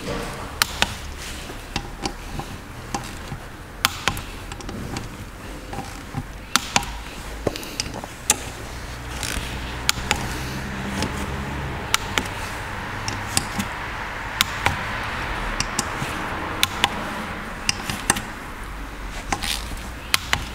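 Sharp metallic clicks and clinks at irregular intervals, often less than a second apart, from a wrench and bearing-cap bolts as the exhaust camshaft caps on a BMW M57 diesel cylinder head are tightened to torque for a trial fit.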